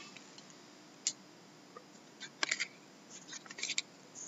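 A stack of trading cards being flipped through by hand: short clicks and slides of card stock against card stock, one about a second in and then a run of them in the second half.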